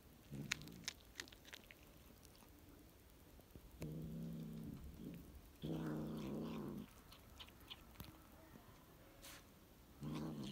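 Domestic cat growling low over its prey, a pigeon, in three drawn-out rumbles of about a second each. Sharp crunching clicks of its bites into the bird come in the first second or so.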